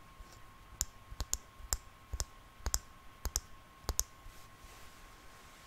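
Fingertips tapping and picking at a plush teddy bear's hard plastic eyes close to the microphone, making about a dozen sharp, irregular clicks in the first two-thirds.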